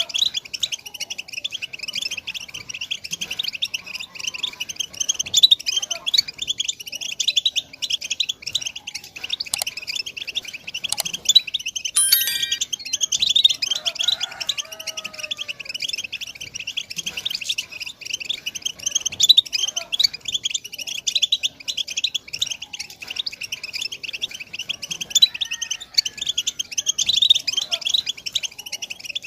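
European goldfinch singing a fast, unbroken twittering song of dense high chirps and trills.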